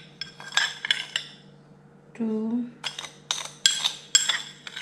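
A metal spoon clinks and scrapes against a nearly empty sugar container, scooping out the last of the sugar. It makes a quick run of sharp clinks with a bright ring.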